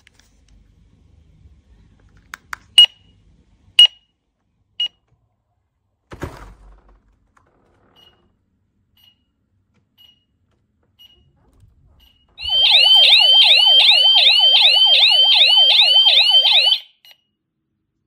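YISEELE wireless home alarm system beeping: a few sharp high beeps, then fainter beeps about once a second. Then, for about four seconds, its siren sounds loud, a warbling tone that rises quickly about three times a second, before cutting off suddenly.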